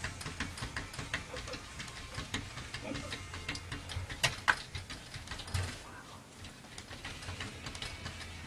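A cat pawing at a glass door, its claws tapping on the glass in quick, irregular clicks, the sharpest about four seconds in, over a steady low hum.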